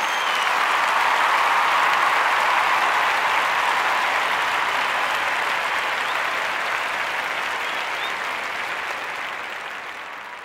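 Crowd applause, a dense steady clapping that slowly dies away in the second half.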